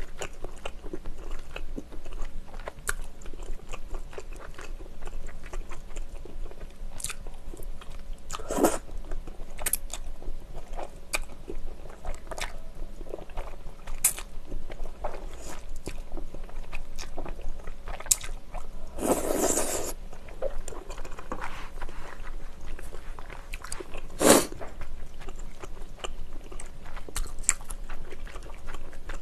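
Close-miked eating of chewy wide Chinese glass noodles in spicy tteokbokki sauce: wet mouth clicks and smacks of chewing throughout, with one longer slurp about two-thirds of the way through.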